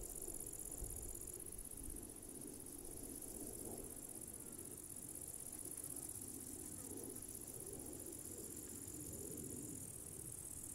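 A steady, high-pitched chirring chorus of meadow crickets, with one thinner strand of insect song dropping out early and returning partway through. A soft, uneven low rushing sits beneath it.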